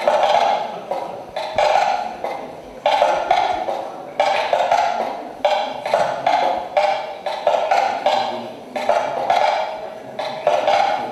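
Percussion like a wood block, struck in a steady, slightly uneven rhythm of roughly two knocks a second, each knock dying away quickly.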